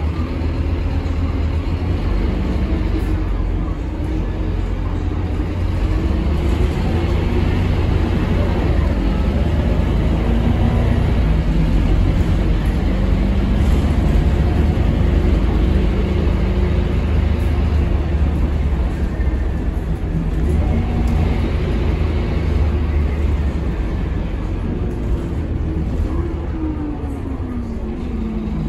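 Rear-mounted Scania DC9 five-cylinder diesel of a Scania K230UB bus running under way, heard from the rear of the passenger cabin, with road noise. A whine falls in pitch at the start, then rises and drops again near the end as the bus changes speed.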